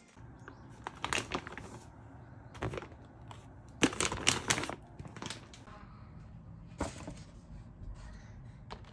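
Plastic food packaging and a cardboard delivery box being handled, giving sharp crinkles and crackles in scattered bursts, the loudest cluster about four seconds in.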